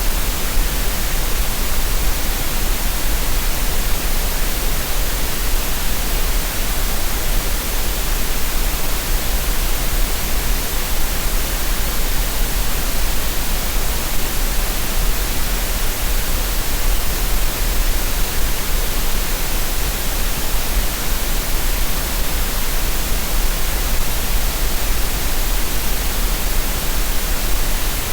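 Steady synthetic green noise, a constant hiss with a deep rumble underneath, unchanging throughout with no rhythm or pauses.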